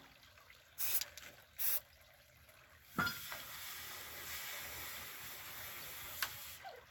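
Aerosol spray paint can hissing: two short sprays, then a longer steady spray of about three and a half seconds, laying paint onto the water surface for hydro dipping.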